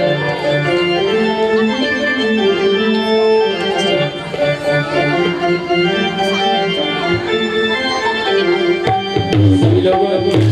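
Instrumental devotional music: an electronic keyboard playing a melody in an organ voice, with hand-drum strokes coming in strongly about nine seconds in.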